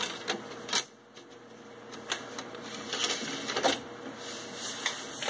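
Computer DVD drive loading a disc: clicks and a clunk as the tray closes on the disc, then a steady whir that builds as the disc spins up, with more clicks from the drive mechanism.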